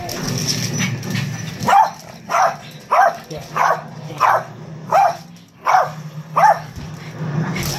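Small dog barking repeatedly at the person, worked up during rough play: about eight sharp barks, roughly one every two-thirds of a second, starting about a second and a half in.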